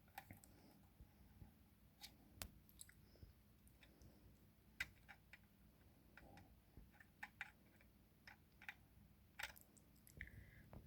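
Faint, irregular clicks and light metallic ticks of a hand tap and tap wrench being handled as the tap is worked out of a freshly threaded M6 hole, over near silence.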